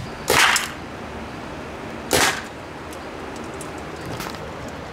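Two short, sharp shots from a paintball gun, about two seconds apart.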